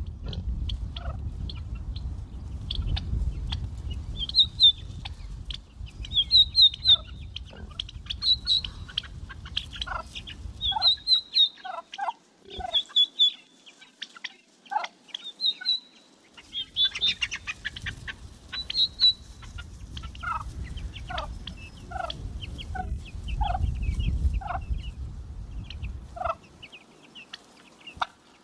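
Poultry calling: a string of short, high chirping peeps mixed with shorter, lower clucking calls, repeating irregularly. A low rumble lies under the calls for the first part and again later, stopping abruptly each time.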